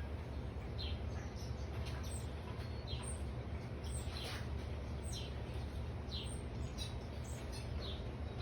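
Backyard birds chirping: many short, downward-sliding chirps, repeated every second or so, over a steady low background rumble.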